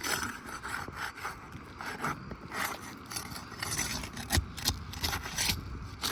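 A flat metal pry tool scrapes and rasps in uneven strokes under asphalt roof shingles, working to break the sealant strip so the shingle can be lifted. There is a sharper knock about four seconds in.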